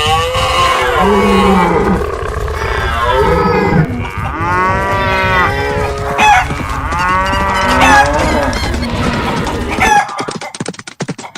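Many cattle mooing, calls overlapping, over a steady low rumble of a running herd. About ten seconds in the rumble and calls stop, leaving a quick run of sharp knocks like hoofbeats.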